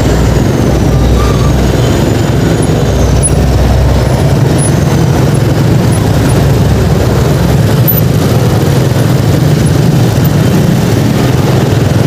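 Steady noise of slow, congested road traffic heard from a moving motorcycle, with engines running close by. A deep low rumble fades out about four and a half seconds in.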